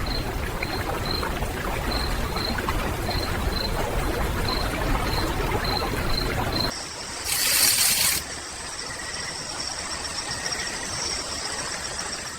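Running water with an outdoor background, a short high chirp repeating about twice a second. About seven seconds in it changes abruptly to a quieter scene with a loud hiss lasting about a second and a steady high whine after it.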